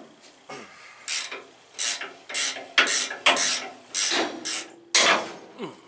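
Ratcheting combination wrench swung back and forth on a bolt. Each stroke gives a short rasping run of pawl clicks, about two a second, for some nine strokes starting about a second in.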